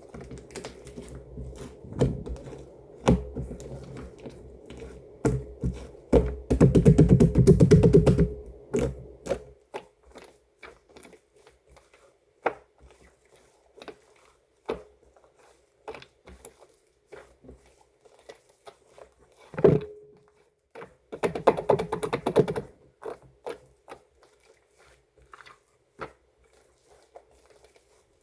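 Slime being squished and poked by hand: scattered sticky clicks and pops, with two stretches of dense crackling squelches, one after about six seconds and another a little past twenty seconds.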